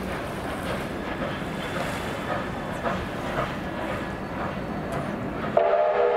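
Wind buffeting the microphone over a steady rumbling background, then about five and a half seconds in a train's multi-note chime whistle sounds suddenly and holds.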